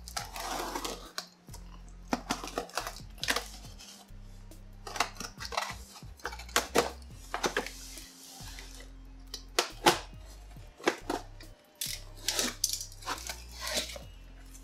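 Cardboard box of a new brake rotor being opened and handled: a run of irregular rustles, scrapes and light knocks, over background music.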